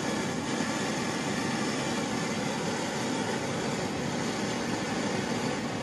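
Gas torch burning with a steady rushing hiss while a brass trumpet valve set is preheated in its flame, ready for soft-soldering a baluster.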